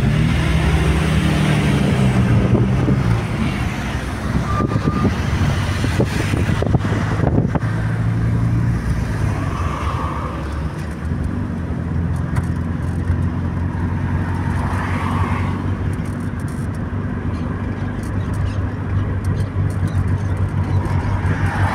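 Car engine and tyre noise heard from inside the cabin while driving along a road. The engine note shifts as the car gets going in the first few seconds, then settles into a steady cruising hum.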